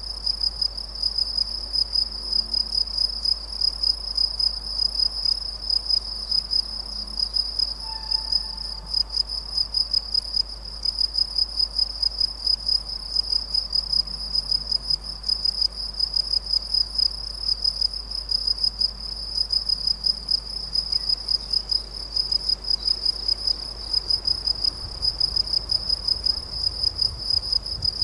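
A stridulating insect trilling steadily at a high pitch, pulsing rapidly without a break.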